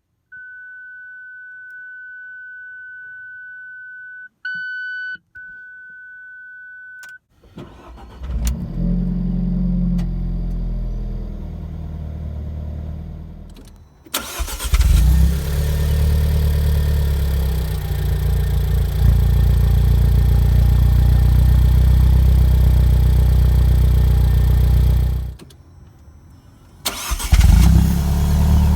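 A steady electronic tone with a brief beep in the middle sounds for about seven seconds. Then the Alfa Romeo 4C's 1.75-litre turbocharged inline-four starts with a flare of revs and runs. It runs louder and steadily from about halfway, drops away near the end, and comes back loud just before the end.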